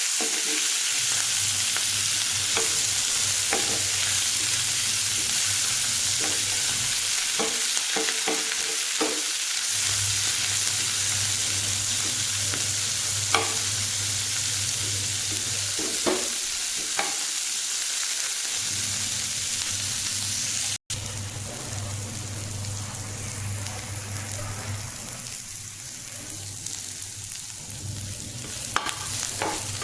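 Radish-leaf bhaji sizzling as it fries in a pan, with a spoon or spatula now and then knocking and scraping against the pan as it is stirred. A brief break about two-thirds through, after which the sizzle is slightly quieter.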